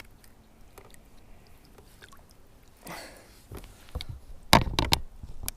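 Knocks and scrapes of handling on a kayak: a few faint clicks, then a quick cluster of loud sharp knocks near the end, as a freshly landed bass and gear are handled.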